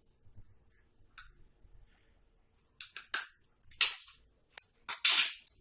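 A metal spoon clinking and scraping against a cooking pot in short, irregular strokes, coming thicker and louder in the second half, as turmeric is spooned into a boiling herbal decoction.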